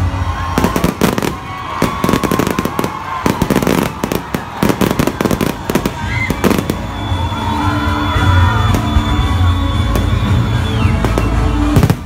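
Aerial fireworks exploding: a dense run of rapid bangs and crackles for about the first six seconds, thinning to scattered pops after that. Music plays throughout.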